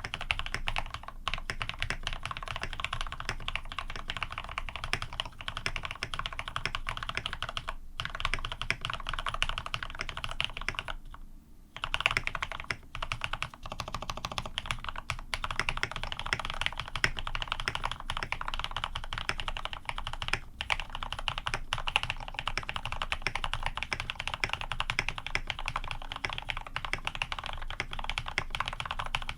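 Continuous fast typing on a custom AR87 mechanical keyboard with Cherry retooled black-housing switches on cream stems, lubed with Krytox 105 and 205, on 70 g springs, an aluminium plate and PBT keycaps. Typing pauses briefly about eleven seconds in, then resumes with a sharper keystroke.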